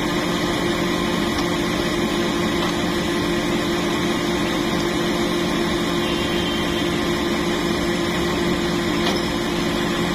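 A large vehicle engine idling steadily: a constant low hum with an even hiss over it.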